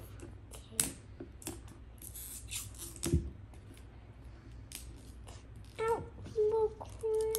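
Crackling and tearing of the wrapping on a toy surprise ball as it is peeled open by hand, in scattered sharp clicks and crinkles. Near the end a child's voice holds a few short notes.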